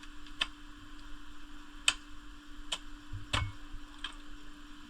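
Machete chopping into a fresh coconut: five sharp strikes at uneven intervals, the fourth the heaviest with a dull thud under it.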